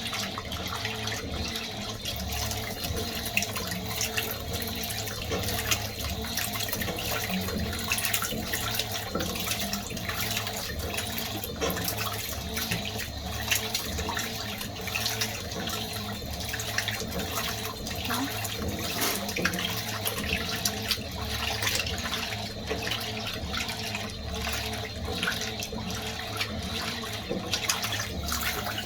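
Fisher & Paykel MW511 washing machine running, with a steady rush of water in the tub and an uneven low churning underneath.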